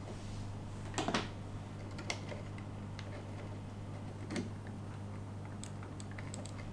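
Small plastic clicks and taps as N gauge model coaches and their couplings are handled and pushed together by hand: scattered light ticks, with a slightly louder cluster about a second in, over a steady low hum.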